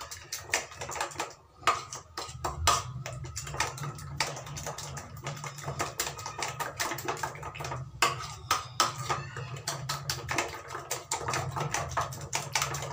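A utensil beating raw eggs mixed with chopped onion, green chilli and spices by hand in a small bowl: rapid, irregular clicking and tapping against the bowl, with a brief pause about a second and a half in.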